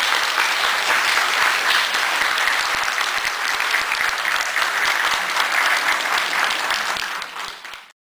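A large audience applauding: dense, steady clapping that cuts off abruptly near the end.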